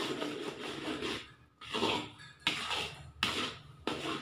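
A metal spoon scraping and stirring thick almond halwa paste in a brass pan: a series of short scraping strokes, with a brief pause a little over a second in.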